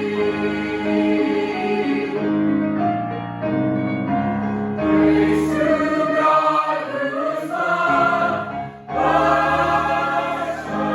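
Choir singing a Christmas hymn in harmony with long held chords. There is a short break between phrases about nine seconds in.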